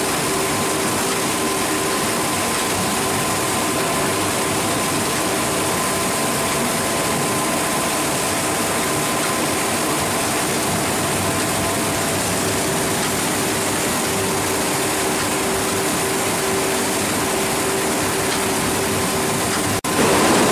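Steady running noise of factory processing machinery, with a constant hum of several steady tones. It drops out for a moment near the end and comes back slightly louder.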